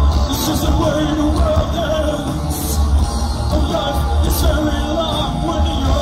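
Post-punk rock band playing live, loud and bass-heavy, heard from within the crowd: a woman singing over electric guitars, keyboard and drums, with cymbal crashes about half a second in, near the middle and again a couple of seconds later.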